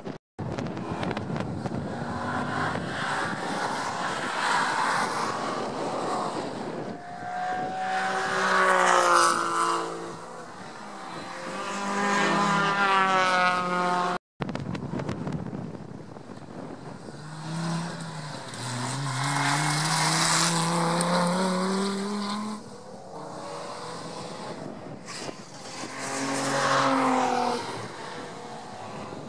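Cars at speed on a road-racing circuit, passing one after another. Each engine note climbs in pitch as the car accelerates, then fades as it goes by.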